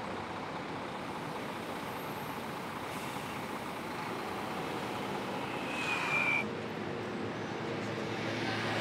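Steady outdoor road-traffic noise from a city, with a brief high squeal about six seconds in.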